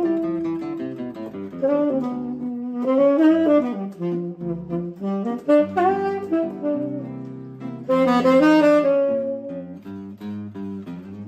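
Tenor saxophone and seven-string acoustic guitar playing a choro duet: the saxophone carries a flowing melody while the guitar plucks chords and a moving bass line beneath it.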